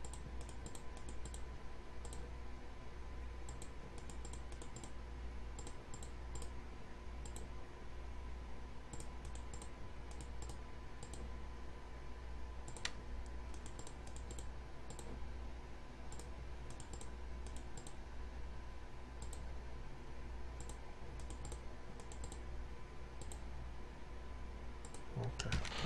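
Irregular clicks of a computer mouse as lines are picked point by point, over a steady low electrical hum and a faint steady high tone.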